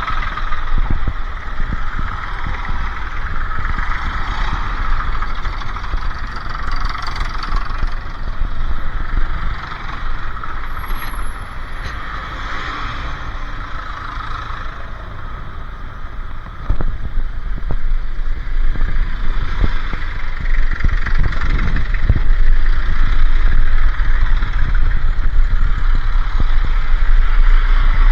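Pickup truck engine running with road and rumble noise, getting louder about two-thirds of the way through.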